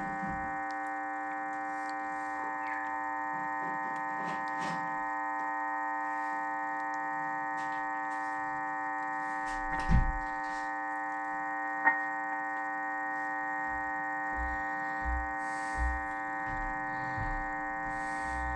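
Kenwood TS-820S transceiver's transmit-monitor audio carrying a steady buzzing hum made of many evenly spaced tones: the hum fault that gets onto the mic audio while transmitting. A knock about ten seconds in and a sharp click about two seconds later, then a few soft low thumps near the end.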